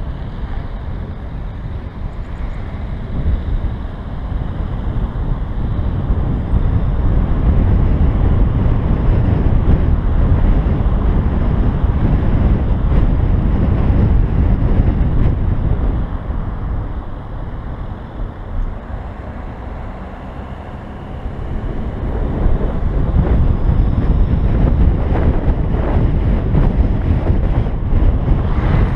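Wind buffeting the microphone and tyre noise from a BMW i3s driving along a country road, a dense rumble with no clear engine note. It eases off for a few seconds a little past halfway, then picks up again.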